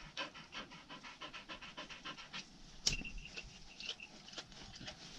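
A hunting hound panting rapidly in an even rhythm of short breaths, with one sharp click about three seconds in.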